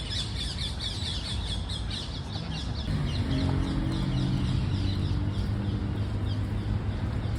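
A flock of small birds chirping, many short high calls overlapping in quick succession. From about three seconds in, a low steady hum joins underneath.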